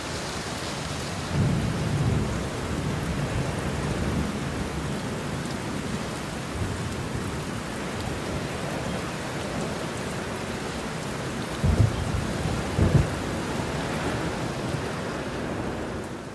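Steady rain with rolling thunder: a low rumble about a second and a half in, then two sharper, louder claps close together past the middle. The sound starts fading out right at the end.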